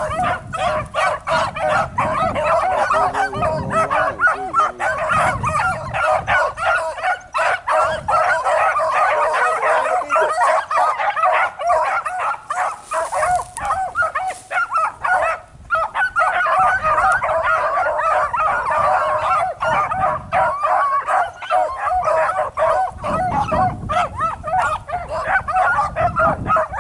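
A pack of beagles baying on a rabbit's trail, many voices overlapping without a break.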